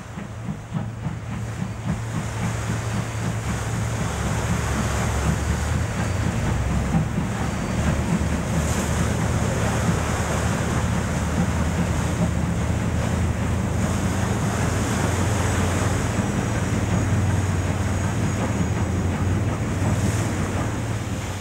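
Wind buffeting the microphone and rushing river water, over a deep, steady rumble that builds over the first few seconds, with pulsing beats near the start.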